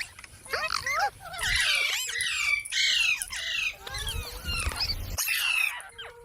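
Indian ringneck parrot squawking and chattering in a quick run of short calls that swoop up and down in pitch.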